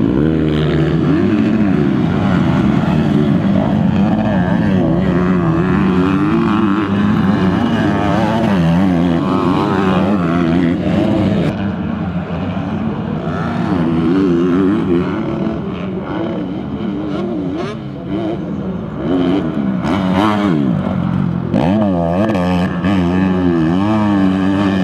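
Several motocross bike engines revving hard, their pitch rising and falling again and again with throttle and gear changes. About halfway through the sound turns duller and more distant.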